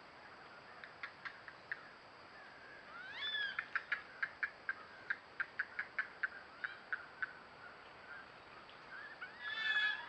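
Green heron calling: a squawk about three seconds in and another near the end, with a quick run of sharp clucking notes, about four or five a second, between them.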